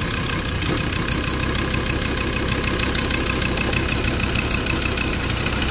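Five-cylinder diesel engine of a Mazda BT-50 idling steadily during an injector cutout test, with the number 3 injector connector unplugged; cylinder 3 has been diagnosed as misfiring.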